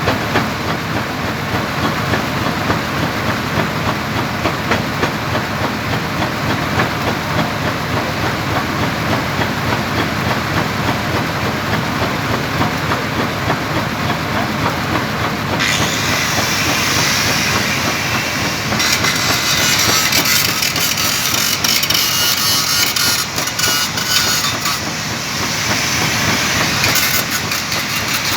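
Welding arc on stainless steel pipe, a steady crackling hiss. About halfway through a brighter hiss joins it, and a faster, denser crackle follows soon after.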